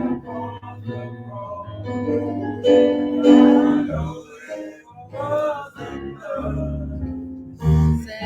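A gospel hymn sung with guitar accompaniment, the sung lines held over steady low bass notes.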